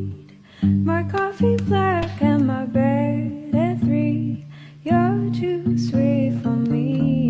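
Background music: a song with plucked guitar and a singing voice.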